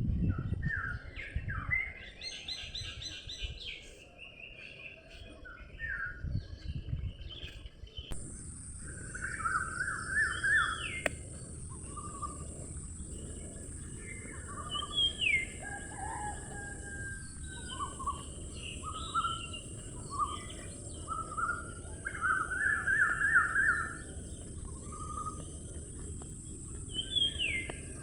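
Birds chirping and calling in many short, repeated chirps and quick trills over a steady low rumble. About a third of the way in, a steady high-pitched hiss joins.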